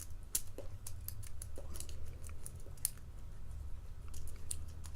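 Lock pick being rocked as a rake in the keyway of an old Yale pin-tumbler padlock: irregular small metallic clicks and scrapes as the pins are worked under tension. The lock is not opening; the picker believes spool pins are catching.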